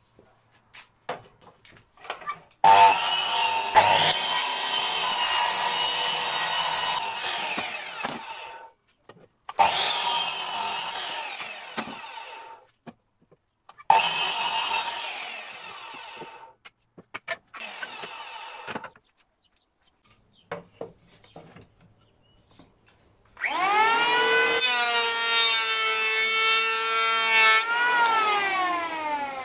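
A Bosch sliding mitre saw makes four cuts through wooden boards, each starting loud and dying away as the blade spins down. About two-thirds of the way through, a Bosch Professional electric hand planer starts: its whine rises as it spins up, holds steady for a few seconds, then falls as it winds down near the end.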